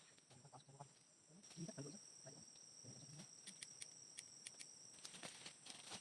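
Faint night ambience: a steady high-pitched insect drone with scattered light ticks and taps.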